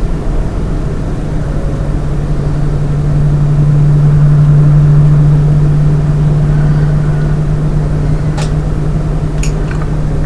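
Stock case fans of a Lian Li 217 Infinity PC case running at 40% speed, giving a steady, loud low drone that swells through the middle and eases again: the resonance noise that the owner blames on the case's Lian Li fan hub. A couple of sharp clicks near the end.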